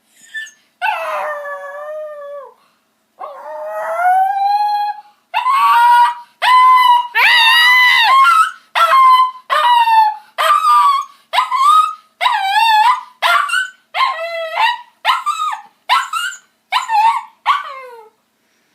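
Dog howling: two long drawn-out howls, then a run of shorter howling yelps, about one a second, with a wavering pitch that gets shorter toward the end.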